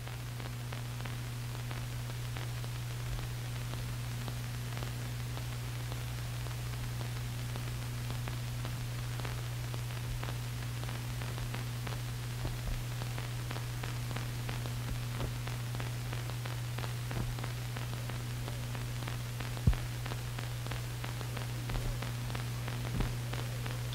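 Steady low hum and hiss with faint scattered clicks and crackles, one sharper click late on: the noise floor of an old film soundtrack, with no work sounds heard.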